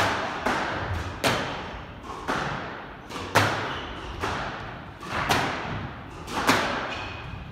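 Squash rally: the ball cracking off rackets and the court walls, sharp hits about every second, each ringing out in the hard-walled court.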